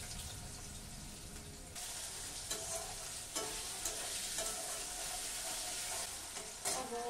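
Cut potatoes sizzling as they fry in hot oil in a steel karahi, the sizzle growing stronger about two seconds in, with a few clinks and scrapes of a metal spatula against the pan as they are stirred.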